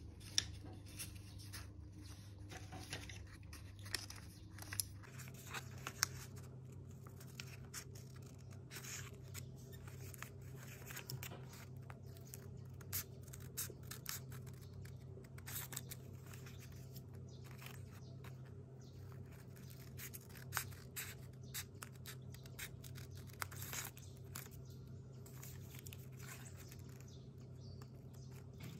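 Sheet of folded paper being handled and creased by hand, then scissors snipping through the folded paper in short, irregular cuts, over a faint steady low hum.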